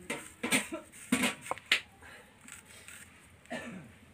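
Kitchen knife slicing through an onion onto a wooden chopping board: a quick run of sharp cuts and taps in the first two seconds, then another near the end.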